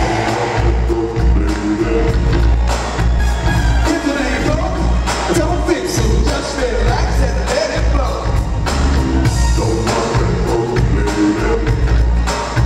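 Live R&B/funk band playing: steady bass and drum groove with keyboards, and a lead vocal singing over it, heard from the audience.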